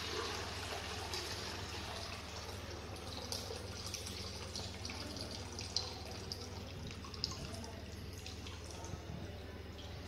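Water running from a white PVC outlet pipe into a red plastic bucket as the model's flush tank empties, with a few drips. The tank emptied because the weight came off its spring-loaded footrest, which opened the outlet. The flow is steady and eases off slightly.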